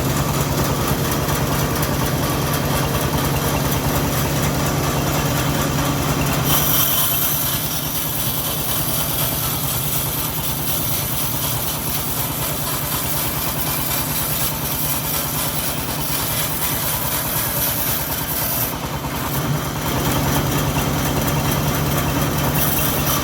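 Engine of a homemade bandsaw sawmill running steadily. From about six seconds in until about twenty seconds the low engine note drops and a high hiss rises, as when the blade works through a teak log. Then the steady engine note returns.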